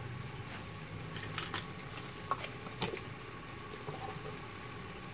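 A few light clicks and taps of kitchenware as MSG seasoning is added from a small plastic tub to a steel pot of cabbage, between about one and a half and three seconds in, over a steady low hum.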